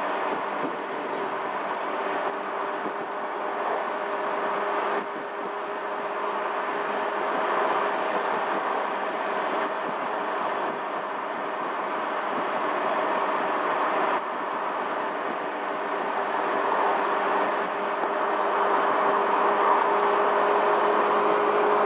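Honda Helix CN250 scooter's single-cylinder engine running at a steady highway cruise of about 50 mph, mixed with the rush of wind and road noise at the rider's seat. A steady hum with no change in speed.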